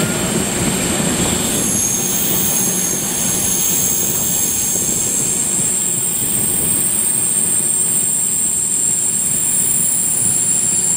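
Passenger train running on the rails, heard from an open coach window: a steady rumble of wheels and coaches with a continuous high-pitched wheel squeal over it, as on a curve.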